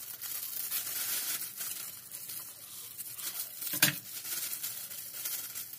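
Plastic roasting sleeve crinkling and rustling as its gathered end is twisted and tied by hand, with one sharper snap about two-thirds of the way in.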